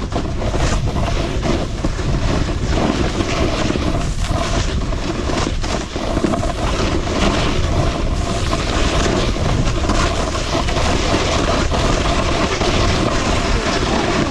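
Wind rushing over the microphone, with skis scraping and chattering over hard, icy snow during a fast downhill ski run.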